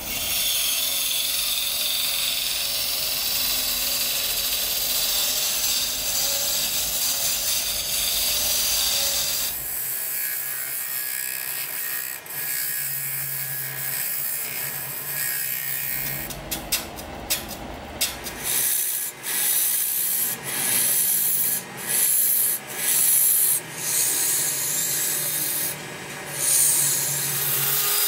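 Carbide-tipped turning tool scraping the face of a wooden plate spinning on a lathe: a steady, hissing scrape, which in the second half breaks into repeated short cuts as the tool is pressed in and lifted off.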